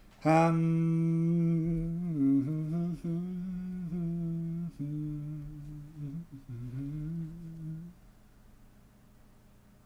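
A man humming a few long, low notes with brief dips in pitch, stopping about eight seconds in.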